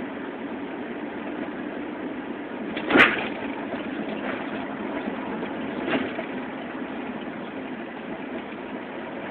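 Steady hum of a car's engine and road noise heard from inside the moving car, with a sharp thump about three seconds in and a lighter knock about three seconds after it.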